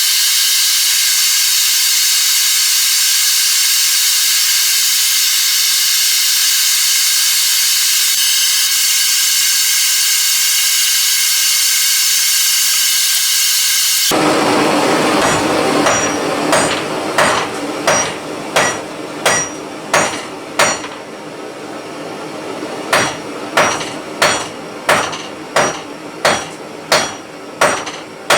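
A blow lamp's flame hissing steadily for about the first half, then a 48 oz ball-peen hammer striking hot rebar: sharp ringing metal blows at about two a second, with a pause of about two seconds in the middle.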